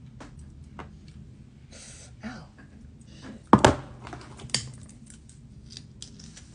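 Light clicks and rustles of a hair flat iron being clamped and drawn through long hair, with a sharp knock about three and a half seconds in and a smaller one about a second later.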